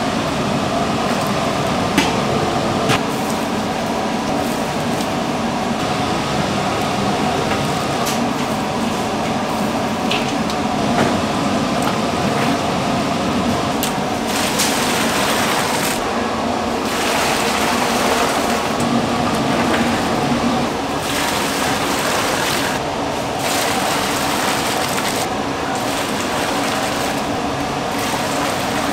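Water running and splashing steadily, with a few sharp clinks.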